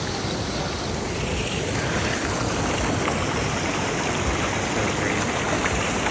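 Steady rush of a creek's water falling over rocks.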